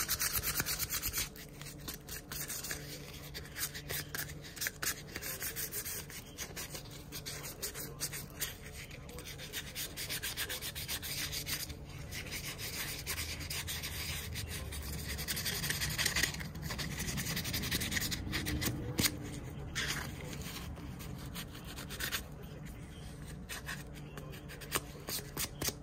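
Quick, repeated hand-rubbing strokes of a worn sheet scrubbed back and forth over a vintage Queen Barlow pocketknife's metal blades and bolsters.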